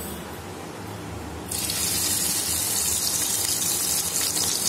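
Crushed garlic cloves tipped into hot oil in a kadai, breaking into a steady loud sizzle about a second and a half in.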